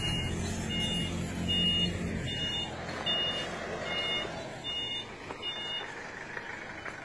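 A vehicle engine runs while a short, high electronic beeper repeats roughly every 0.8 seconds. The engine hum drops away about halfway through, and the beeping stops near the end.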